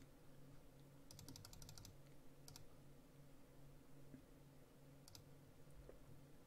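Faint computer mouse clicks: a quick run of about eight clicks a little after a second in, then single clicks about two and a half and five seconds in, over a faint low hum.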